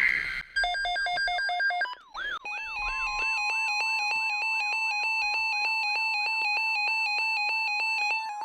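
NOAA Weather Radio receiver sounding an alert: a short screech of digital data tones, then a fast stepped electronic chime. From about two and a half seconds in, a rapidly repeating warbling alarm sounds over a steady single attention tone, signalling an incoming weather alert.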